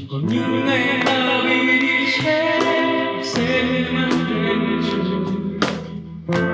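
A song performed live by a small group: singing over instrumental accompaniment, with a brief drop near the end.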